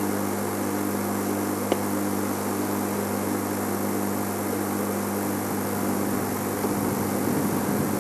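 Game-drive vehicle's engine idling with a steady low hum under a constant hiss.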